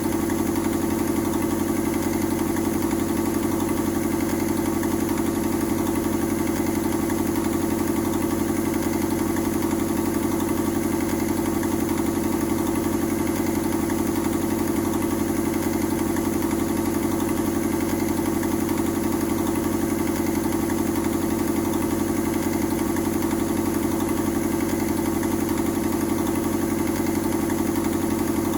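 Mazda 121 Metro engine idling steadily, with the rasp of an exhaust leak.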